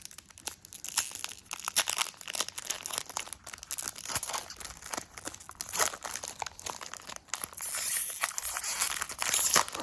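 A Pokémon booster pack's foil wrapper being torn open and crinkled in the hands: a dense, irregular crackle that grows louder near the end.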